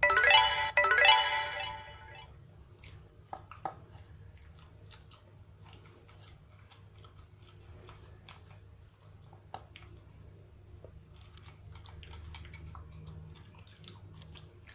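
A brief burst of music in the first two seconds, then a 12-year-old Pekingese chewing and crunching his regular dog food in small, scattered clicks.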